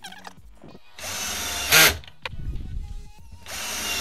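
Ginour 12V cordless drill driver driving a screw into wood in two runs. The motor starts about a second in and swells sharply just before it stops, then starts again near the end.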